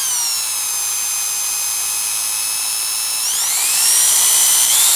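Electric drill motor whining as it runs off an inverter powered by the alternator's capacitor bank. Its pitch sags over the first second, holds steady, then climbs again a little past the midpoint.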